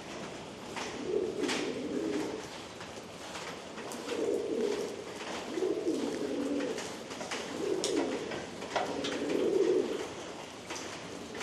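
Pigeons cooing, a coo every second or two, with faint scratching from a brush being worked over a horse's coat.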